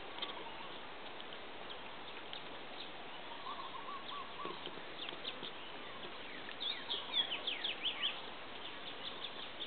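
Chickens and birds outdoors: a short run of soft, low clucking notes about three and a half seconds in, then a cluster of quick, falling chirps around seven to eight seconds in, over a steady hiss.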